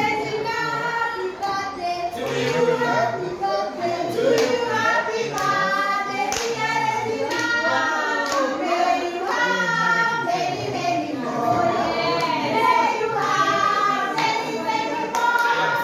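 A small group of people singing together and clapping their hands in time.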